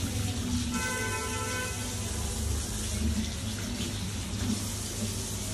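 Kitchen tap running steadily. About a second in, a brief ringing tone of several pitches lasts about a second.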